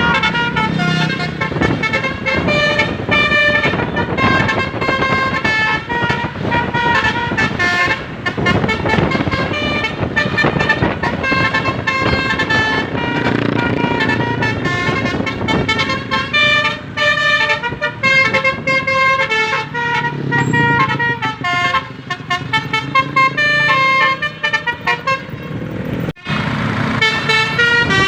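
Bus telolet basuri musical horn blasting a tune through its roof-mounted trumpet horns: a quick run of steady horn notes changing pitch several times a second, over vehicle noise. It cuts out for an instant near the end.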